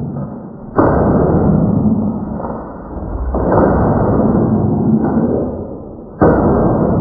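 A computer keyboard being smashed on a desk, played back eight times slower. There are three drawn-out crashes, about a second in, midway and near the end; each starts suddenly and fades slowly.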